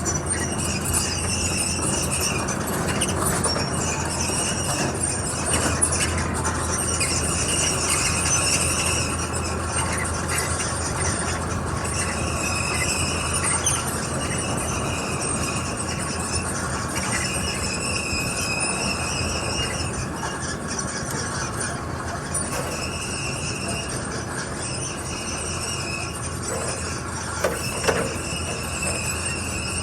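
A JCB 8065 midi excavator running, its engine holding a steady low hum while a high-pitched squeal comes and goes every few seconds, each lasting a second or two, as the machine is worked. Two short knocks come just before the end.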